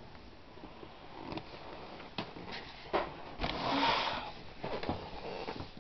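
Handling noise in a cardboard box: a few scattered clicks and knocks, then a short rustle about three and a half seconds in, the loudest moment, with fainter rustling after it.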